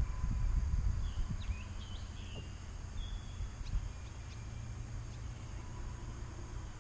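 Outdoor ambience on a lake: a low, uneven rumble of wind on the microphone, with a few faint, short bird chirps in the first half.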